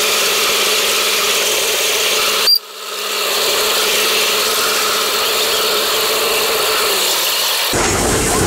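Steam locomotive hissing steam: a steady, high-pitched hiss that cuts out for a moment about two and a half seconds in, then comes back.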